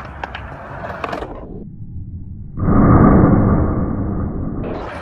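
Skateboard noise on concrete: sharp clacks of the board over wheels rolling, then after a short muffled lull a louder, dull steady rush of rolling noise.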